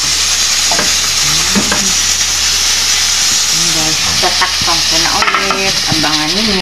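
Steady sizzling hiss of food cooking on the stove, with the rustle of bok choy leaves being pressed down into a steel pot.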